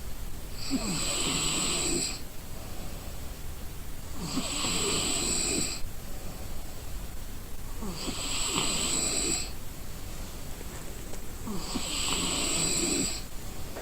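A sleeping person snoring, four snores in a steady rhythm about every three and a half to four seconds, each lasting about a second and a half.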